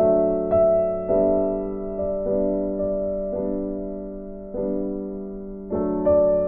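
Slow background piano music: notes and chords struck about once a second, each left to fade.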